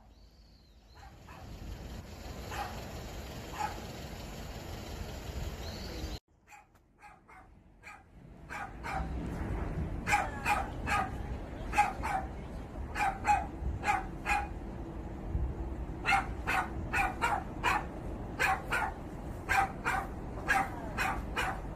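A dog barking over and over, in runs of several quick barks a second, over a steady background noise. The barking grows more frequent from about nine seconds in.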